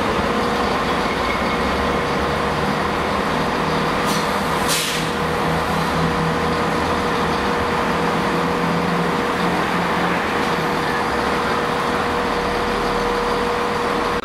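Diesel trains running at a station: a steady engine drone with a constant whining tone, and a short hiss about five seconds in.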